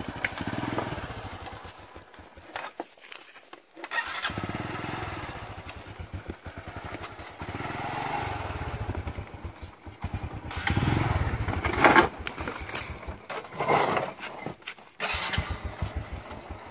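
Small Honda Blade underbone motorcycle's single-cylinder engine running and revving in bursts under load as it is ridden and pushed up over rocks. It drops away briefly about three and a half seconds in, then picks up again with a few hard revs in the second half.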